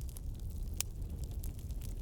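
Wood fire crackling: scattered sharp pops and snaps, the loudest a little under a second in, over a low steady rumble.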